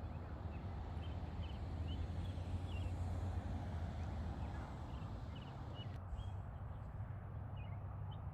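Songbirds chirping in many short, high calls scattered throughout, over a steady low rumble.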